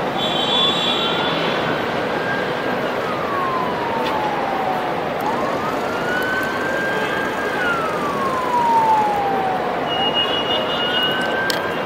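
An emergency vehicle's siren wailing in slow cycles, each one rising, holding briefly at the top and falling over about five seconds, over steady city traffic noise. Short higher-pitched tones sound briefly near the start and again near the end.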